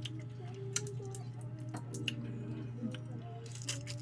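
Close-up eating sounds: wet squishing as fingers pull apart fried tilapia and peel sauce-coated shrimp, with scattered small clicks of lips and finger-sucking. A steady low hum runs underneath.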